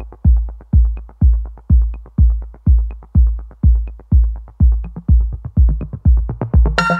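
Electronic background music with a steady kick-drum beat at about two beats a second; a synth chord comes in near the end.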